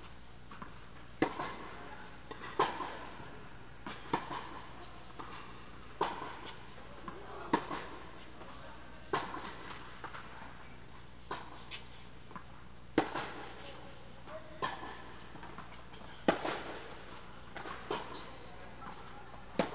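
Tennis ball being hit back and forth with racquets in a rally, a sharp pop about every second and a half, some hits much louder than others, each echoing under the indoor tennis dome.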